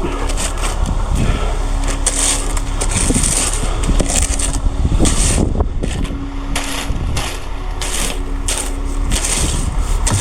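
Wind buffeting the microphone in gusts over a steady engine hum.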